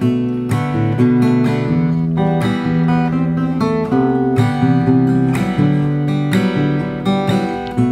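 Steel-string acoustic guitar strung with D'Addario EZ890 80/20 bronze strings, played in a steady strumming rhythm of chords with a strong stroke about once a second and lighter strokes between.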